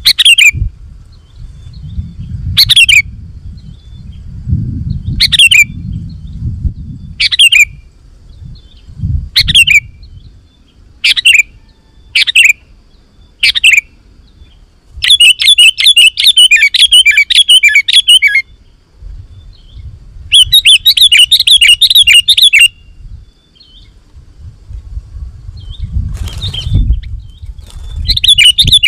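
Sooty-headed bulbul (kutilang) calling energetically: short sharp calls every second or two, then two fast chattering runs of about three seconds each and a third starting near the end. A low rumble comes and goes underneath.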